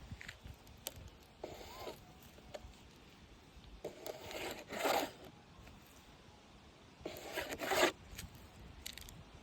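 Digging and scraping in gravelly ground at a metal detector target: two harsh scrapes, one about halfway through and one near the end. A short rising-and-falling metal detector tone sounds early on.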